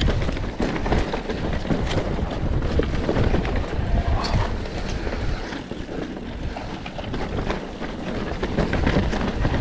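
Wind buffeting the microphone over the rumble and rattle of an enduro bike riding a rough trail, with scattered knocks from the bumps.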